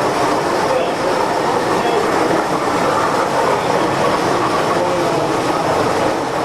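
Train wheels rolling along track: a steady, continuous rattle with no let-up.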